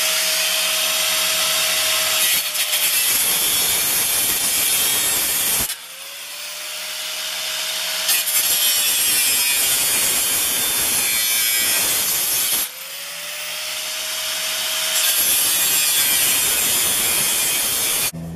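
Corded angle grinder cutting through a sheet-metal vent pipe: a loud, steady grinding screech. The noise drops sharply twice and builds back up each time as the cut goes on.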